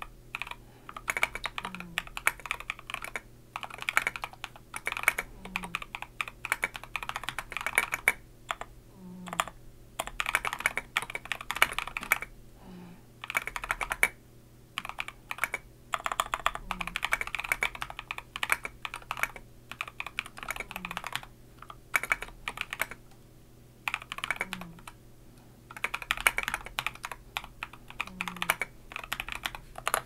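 Typing on a Wuque Ikki 68 Aurora mechanical keyboard with an aluminium plate, lubed and filmed JWK Quartz switches and SA-profile keycaps: fast runs of keystrokes in bursts of a second or two, with short gaps between them.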